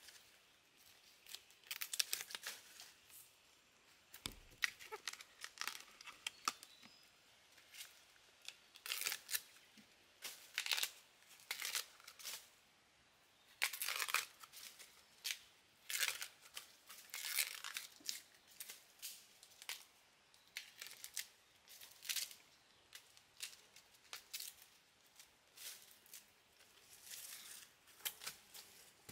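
Dry husk sheaths being torn off fresh bamboo shoots: a run of short, irregular tearing and crinkling sounds, one after another with brief pauses between them.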